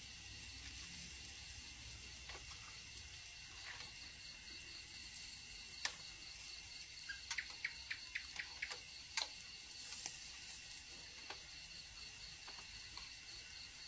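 Pork sizzling faintly on a moo kratha grill pan, with sharp clicks of chopsticks against the metal pan, including a quick run of about six taps around the middle. A steady high chirring of night insects runs underneath.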